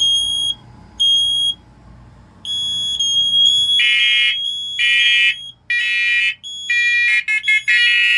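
First Alert smoke alarms in test mode: one alarm gives high, evenly spaced beeps about a second apart, then a held tone. About four seconds in, the other linked alarms join with lower beeps in several pitches, layering into a loud clashing chorus of alarm tones.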